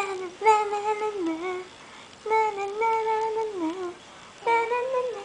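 Young baby cooing: three long, drawn-out vocal sounds with a wavering, sliding pitch, separated by short pauses.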